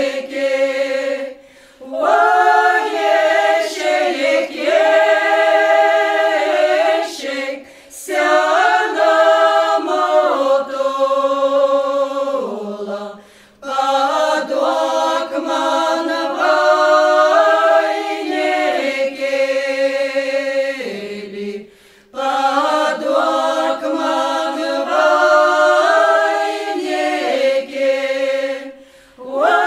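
Choir singing a cappella, a slow song in long held phrases with short breaks between them.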